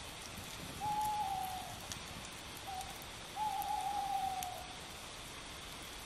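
An owl hooting: one long hoot, a brief short note, then a longer hoot that wavers and trails off. It sounds over a steady faint hiss with small scattered crackles.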